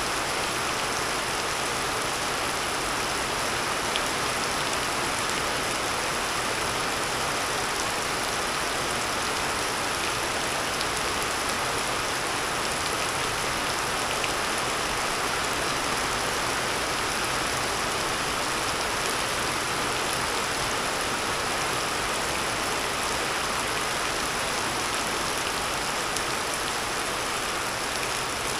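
Rain falling steadily, an even hiss that holds without a break.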